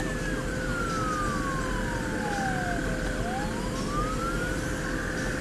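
Emergency vehicle siren in a slow wail: falling steadily in pitch for about three seconds, then rising again. Underneath, a steady hum and a constant rushing noise.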